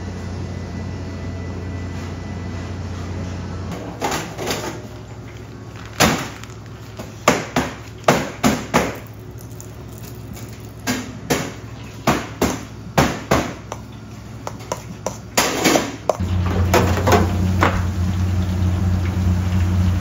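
Bakery kitchen work: a steady low machine hum that drops away about four seconds in and comes back louder near the end, with a run of sharp knocks and clatters of tools or trays in between.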